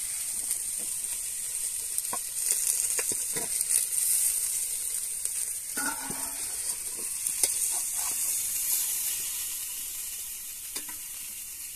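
A ladle scraping and tapping inside a metal cooking pot as cooked greens are stirred and scooped, in scattered clicks over a steady high sizzling hiss from the hot food.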